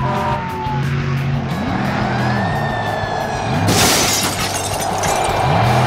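Monster truck engine revving up and down several times, with a loud crash about four seconds in, followed by steady crowd noise.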